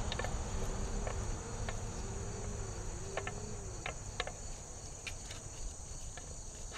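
Steady high-pitched chorus of insects, with scattered small clicks as autumn olive berries are plucked and drop into a plastic bowl.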